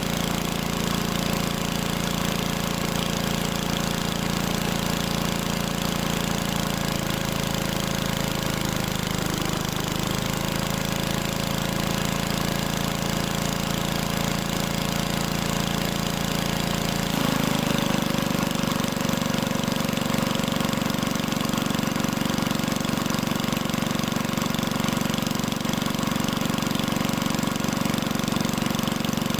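Magna Force gas-powered air compressor running on its 5 hp Briggs & Stratton single-cylinder engine, with a new carburetor pump diaphragm fitted. The engine speed wavers around eight to ten seconds in and shifts abruptly about seventeen seconds in, then holds steady as the carburetor is tuned.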